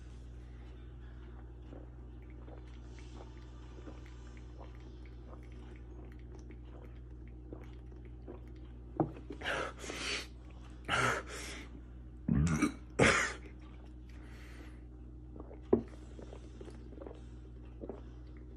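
A man gulping milk from a gallon jug, with faint swallowing ticks. In the middle he breaks off with a run of loud coughs and gasps. A steady electric-fan hum runs underneath.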